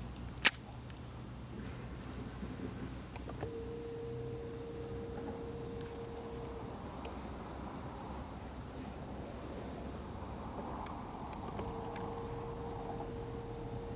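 Insects in the riverside brush singing in a constant high-pitched drone. A single sharp click comes about half a second in, and a faint steady hum sounds for a few seconds in the middle and again near the end.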